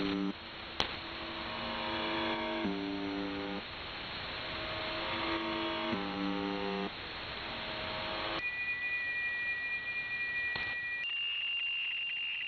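Shortwave radio reception on 4625 kHz: a steady hiss of static, with a low buzzing tone of about a second returning roughly every three seconds between other pitched tones. About eight seconds in, these give way to steady high whistle tones, which jump higher near the end.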